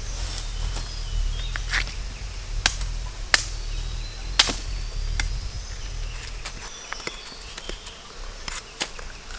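A few sharp knocks and cracks at irregular intervals, the loudest about three and four seconds in, over a low rumble that fades out about seven seconds in.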